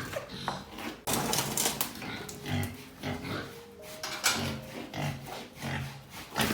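Pigs grunting repeatedly while they feed, short low grunts in quick succession, with scattered clicks and knocks among them.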